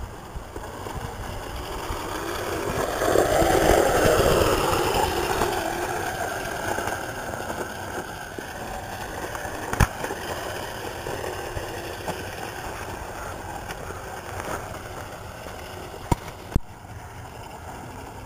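Razor electric scooter riding past on a dirt trail: its motor and tyres grow louder as it approaches, are loudest about four seconds in, then fade as it moves away. A few sharp clicks later on.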